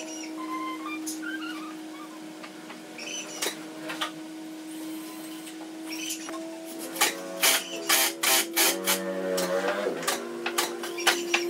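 A steady hum, with a quick run of sharp knocks, several a second, over the last four seconds or so, and a few bird chirps earlier.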